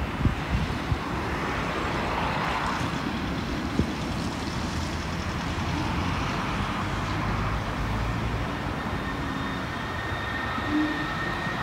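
Siemens VAL 208 rubber-tyred metro train running at a distance, a steady low rumble; a thin high whine comes in about nine seconds in.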